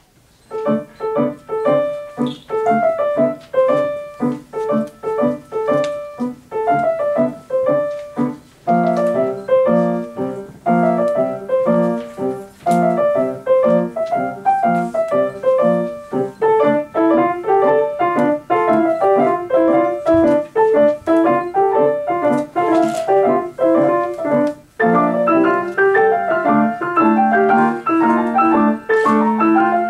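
Two grand pianos playing a concerto movement in D minor: the solo piano part with a second piano accompanying. The playing starts about half a second in, and the music grows fuller about a third of the way through and again near the end.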